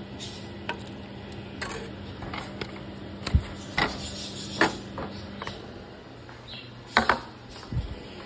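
Kitchen handling sounds: a scattering of sharp clinks and knocks of dishes and utensils, the loudest a close pair about seven seconds in, over a low steady hum.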